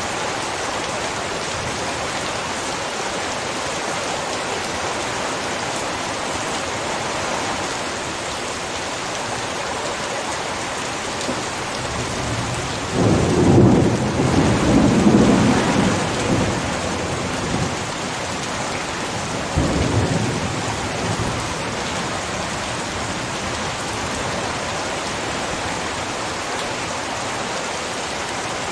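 Heavy rain falling steadily, with a loud low rumble of thunder about halfway through and a shorter second rumble a few seconds later.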